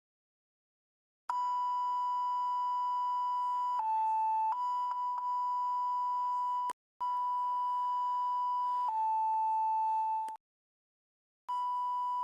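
Homemade electronic alert tone from Chrome Music Lab, imitating an emergency alert signal. A high steady note is held, then steps down to a slightly lower note and back, in three phrases separated by short silences; it starts about a second in.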